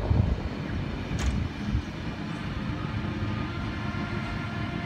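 Sydney Trains S set double-deck electric suburban train running past on the track, with a steady rumble and a steady hum.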